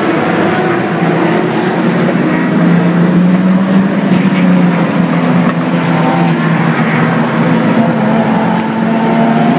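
Race car engines running loud as GT cars accelerate out of pit exit, one following another; the engine note is sustained and swells about two and a half seconds in.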